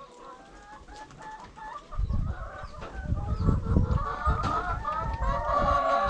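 A flock of chickens clucking, many birds calling over one another and growing louder. Irregular low rumbling joins about two seconds in.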